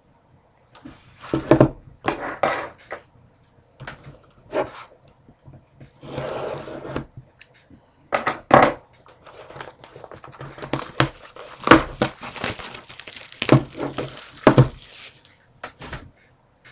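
Plastic wrapping on a sealed box of trading cards crinkling and tearing as it is stripped off, with sharp clicks and knocks from handling the cardboard box. There is one longer tear about six seconds in.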